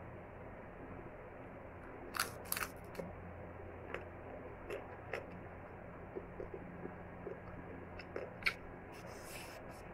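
Cooked crab shell cracking and snapping as it is pulled apart by hand and the meat picked out: a scatter of short, sharp snaps and crackles, the loudest two a little past two seconds in.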